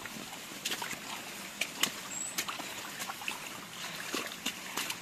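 Footsteps on a forest trail: irregular steps and scuffs over a steady hiss, with a brief high chirp about two seconds in.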